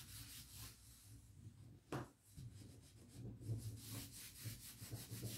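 Cloth rubbing over freshly glued paper on the edges of a wooden box frame, smoothing it flat, in faint repeated strokes. A single sharp click about two seconds in.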